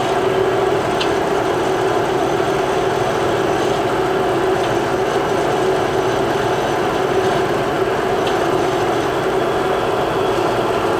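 Cosen AH-250H horizontal bandsaw running through a simulated automatic cycle: its blade drive and hydraulic system give a steady mechanical hum, with a few faint ticks.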